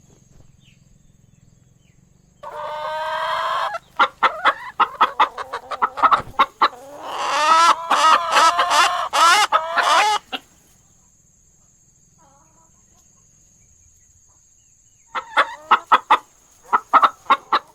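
Chickens clucking in quick runs of short calls, with one drawn-out call about two and a half seconds in. A few seconds' pause, then more clucking near the end.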